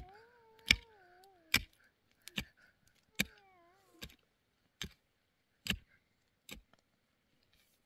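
A steady series of sharp knocks, about one every 0.8 seconds, stopping near the end. Two drawn-out animal calls fall in pitch over about a second each, one at the start and one about three seconds in.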